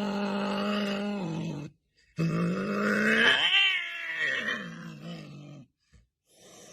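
Domestic cat giving two long, low yowls with a growl in them, the second rising in pitch and then falling away.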